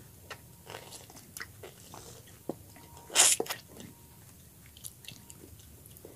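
Close-miked wet mouth sounds of eating by hand: small lip smacks and clicks, with one loud slurp about three seconds in as a lime wedge is sucked.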